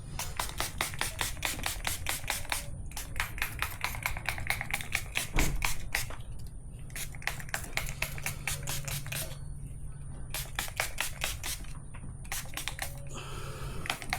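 Hand trigger spray bottle squirted rapidly, many short hissing squirts a second in several runs with brief pauses, likely wetting the tire bead and rim with lubricant before mounting. A single thump about five seconds in.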